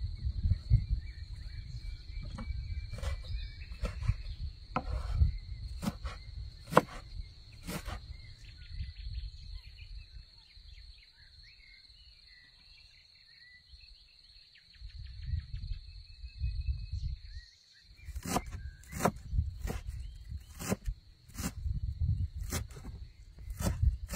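Outdoor ambience: insects keep up a steady high-pitched trill under a low rumble, with scattered sharp clicks and taps and now and then a faint bird chirp. The rumble and clicks drop away for a few seconds in the middle, then the clicks come thick and fast near the end.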